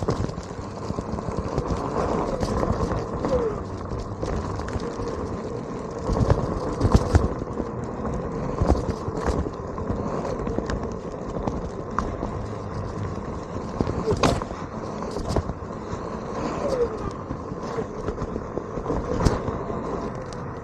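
Onewheel electric board riding over rough ground: a steady rolling rumble with a faint hum under it, broken now and then by sharp clicks and knocks of rocks kicked up against the board.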